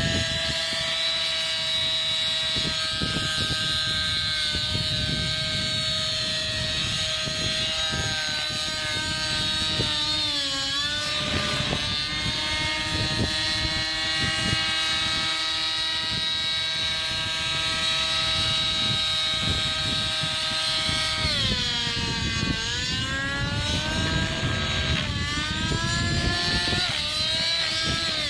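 The nitro glow engine and rotors of a TSA Infusion 600N Pro model helicopter in flight, a steady high-pitched engine whine with rotor noise. The pitch sags briefly and recovers about ten seconds in and several more times near the end, as the engine takes load during manoeuvres.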